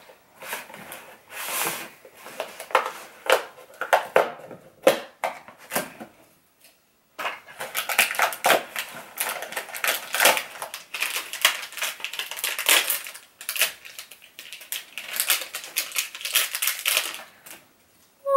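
Toy packaging being handled and opened: a cardboard blind box and a foil wrapper crinkling and rustling in irregular crackles, with a short lull about six seconds in before denser crinkling resumes.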